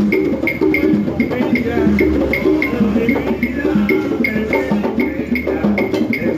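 Instrumental passage of Latin dance music, with a high, hard block-like percussion strike keeping a steady beat of about two or three strikes a second over bass and chordal instruments.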